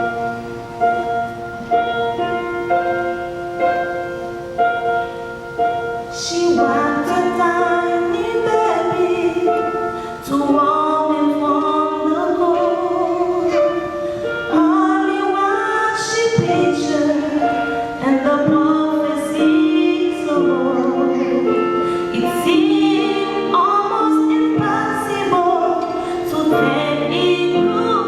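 Music: held instrumental chords, then voices singing a melody over the accompaniment from about six seconds in.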